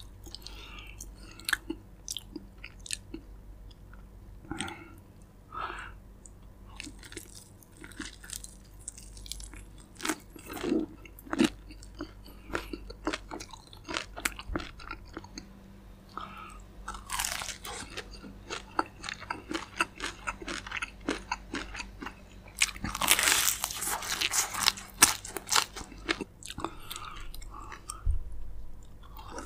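Crispy fried chicken leg being bitten and chewed, with many short crackling crunches of the fried coating. Denser, louder runs of crunching come a little past halfway and again about three-quarters of the way in.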